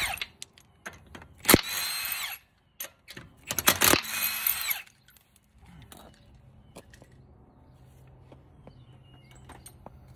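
Milwaukee M18 cordless impact wrench spinning lug nuts off a car's front wheel in short bursts, each rising in pitch. Two full bursts come in the first five seconds, followed by faint clicks of handling.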